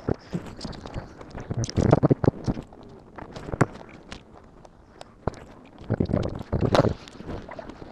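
Scattered clicks, knocks and rustles of hand tools and parts being handled, with two busier clusters about two seconds in and again near the six-to-seven-second mark.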